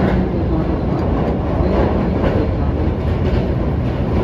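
Train heard from inside the carriage as it crosses a steel truss bridge: a steady rumble of wheels on the rails with faint clicking.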